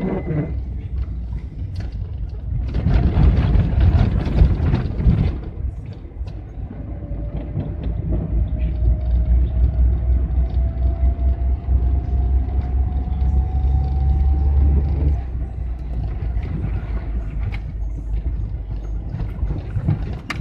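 GAZelle van driving, heard from inside the cab: a steady low engine and tyre rumble over the road, louder and rougher for a couple of seconds about three seconds in. Later a thin whine rises slowly in pitch for several seconds as the van picks up speed, then cuts off.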